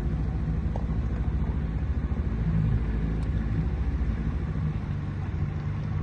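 River boat's engine running steadily, a low even drone.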